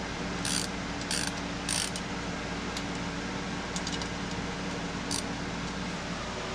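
Hand ratchet clicking in short strokes as the bolts holding a 4.6L 2V camshaft down are backed out: three bursts in the first two seconds, then fainter, sparser clicks. A steady fan-like hum runs underneath.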